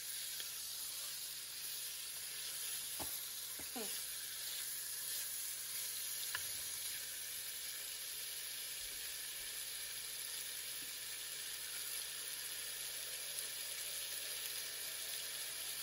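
Diced chicken breast sizzling steadily as it browns in a Dutch oven, with a couple of faint clicks about three to four seconds in.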